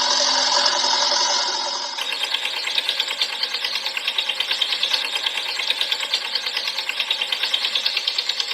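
Toy tractor's engine sound: a rapid, even mechanical chugging rattle at about four to five beats a second. It is preceded for the first two seconds by a steady sound made of several held tones.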